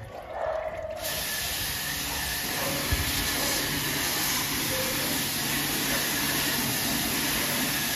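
Pressure-washer water jet spraying onto the metal wire fan guard grille of an air-conditioner outdoor unit: a steady, hard hiss that starts about a second in.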